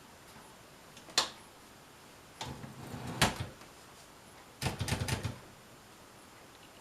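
A 1970 Brother Opus 901 all-metal manual typewriter's mechanism being worked: a single sharp click about a second in, then a clattering burst with one loud metallic click, and near the end a quick run of rattling clicks.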